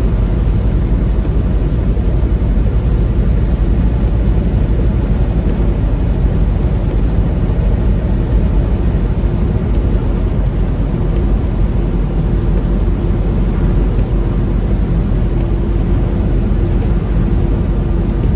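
Steady engine and road noise inside a semi truck's cab while driving, a low continuous rumble, with a faint steady tone coming in about halfway through.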